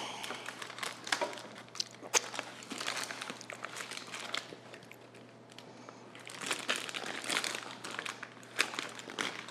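Parchment paper crinkling and rustling as it is handled and lifted out of a metal loaf pan, with a few sharp clicks among the rustles and a quieter pause about halfway through.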